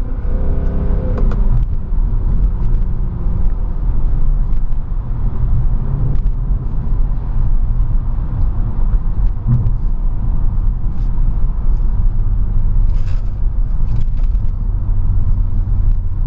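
Mercedes-Benz C63 AMG (W204) 6.2-litre V8 heard inside the cabin, pulling at low revs through town with a steady deep rumble. In about the first second and a half its note falls as the revs drop.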